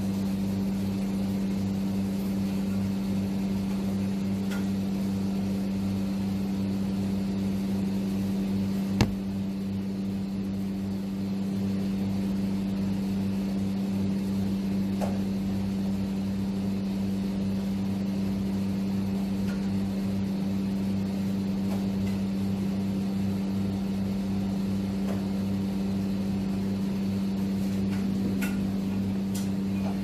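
Steady electrical hum of a running household appliance, with a single sharp click about nine seconds in.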